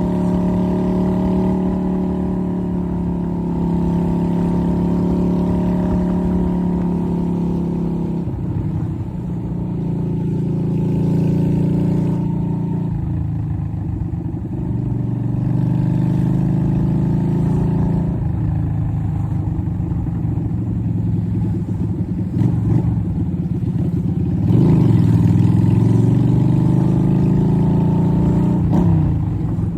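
Yamaha Virago XV250's air-cooled V-twin running through a straight-through exhaust while riding. The pitch falls and climbs again several times as the throttle and gears change, most clearly about 8, 13, 18 and 25 seconds in.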